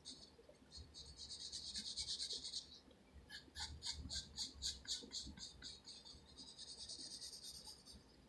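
Wooden pencil scratching on paper as lines are drawn. First comes one long stroke of about a second and a half, then a quick run of short back-and-forth strokes, about five a second, then lighter continuous shading near the end.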